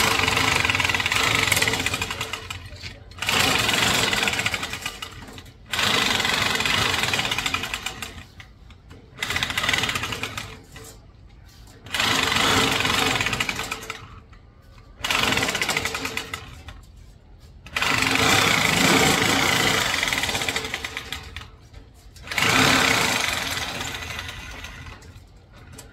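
A power tool cutting a sheet of 14-gauge steel in about eight harsh bursts of a few seconds each, each starting suddenly and trailing off.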